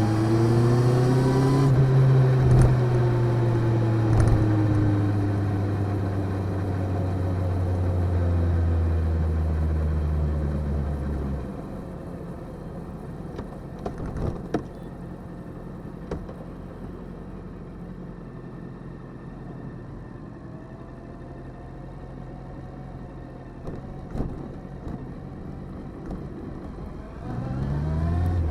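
Motorcycle engine picked up by a recorder wrapped up and stowed on the bike, with little wind noise: it rises and falls in pitch through the first several seconds, then drops to a low, steady run about a third of the way in with a few light clicks, and climbs in pitch again near the end.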